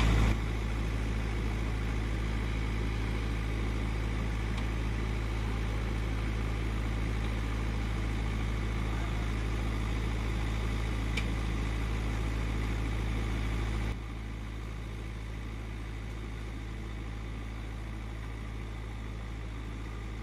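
Diesel engine of a JCB backhoe loader running steadily at low revs. It drops abruptly to a quieter level about two-thirds of the way through.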